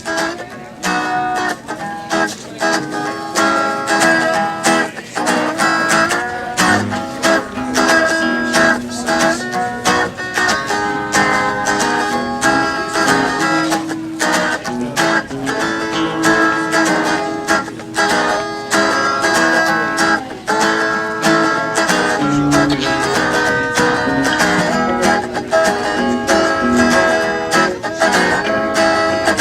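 Acoustic guitar played live, strummed and picked at a steady pace without singing.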